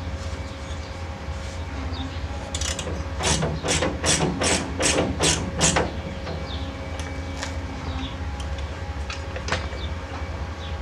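A run of about eight quick metallic clicks, a little over two a second, from a hand tool worked on the car's suspension hardware. A steady low hum runs underneath.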